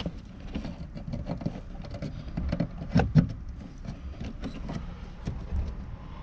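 Small plastic clicks and knocks of a 2004–2008 Acura TSX taillight's wiring plugs and bulb sockets being pushed back into place and the housing handled, with two sharper clicks about three seconds in.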